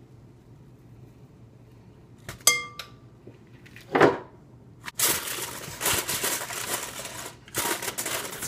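Metal kitchen tongs clink once with a short ring, a soft thud follows, then plastic wrap crinkles loudly as it is pulled and pressed over a bowl of roasted peppers to cover them for steaming.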